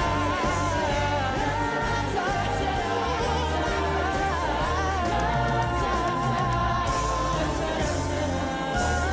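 A live pop song: a vocal group sings a melody over a steady bass-driven backing, with a choir adding harmony.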